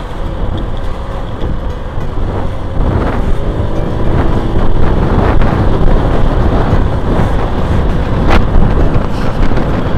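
A vehicle on the move, with loud wind rumble on the microphone; it gets a little louder about three seconds in.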